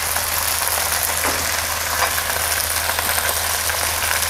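Chicken breast pieces and a lump of butter sizzling in a hot frying pan, with a few light clicks of a spatula against the pan. A steady low hum runs underneath.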